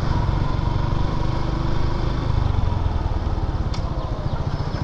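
Suzuki Gixxer motorcycle's single-cylinder engine running steadily at low road speed, ridden slowly, with a steady low rumble.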